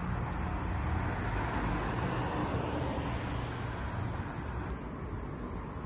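Street ambience: the steady rush of road traffic, with a continuous high-pitched buzz of insects over it.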